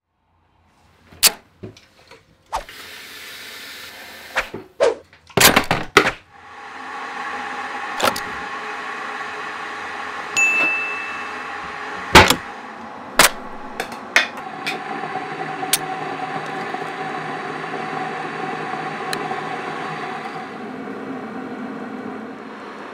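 Sharp clinks and clatter of kitchenware being handled, then a stainless-steel electric kettle heating water with a steady rumbling hiss. A few more clinks and one short ringing ding sound over the rumble.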